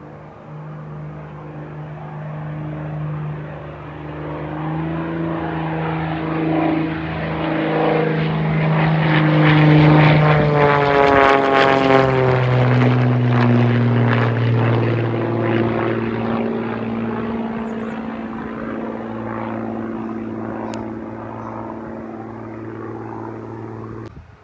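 Propeller-driven light aircraft passing by: its engine grows louder to a peak about ten seconds in, the pitch drops as it goes past, and it fades as it moves away. The sound cuts off suddenly near the end.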